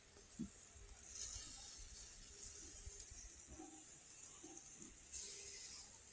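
Jerk chicken sizzling faintly on a drum grill as the pieces are turned. The hiss swells about a second in and again near the end.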